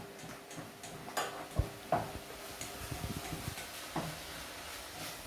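Lean beef mince browning in a frying pan, sizzling as it is stirred. There are a few sharp knocks of the spoon against the pan.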